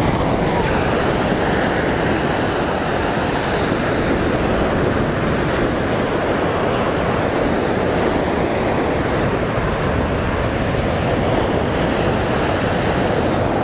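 Ocean surf breaking and washing up a sandy beach: a steady rushing of waves.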